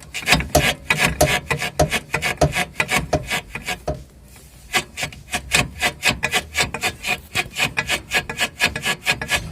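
Torn rubber-metal bushing (silent block) at the rear of a front lower control arm creaking and grating in quick repeated strokes, about three a second, with a short pause about four seconds in. The bushing rubber, torn at one spot, is coming away from its outer sleeve and squeals as the arm moves.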